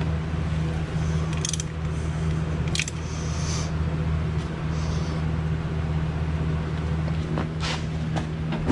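A steady low hum, with a few scattered, sharp metal clicks and clinks from a wrench on the nuts of a strut lift spacer. The clicks come closer together near the end, as the strut is handled.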